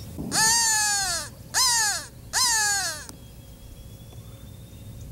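Three loud crow caws, each falling in pitch, the first about a second long and the next two shorter.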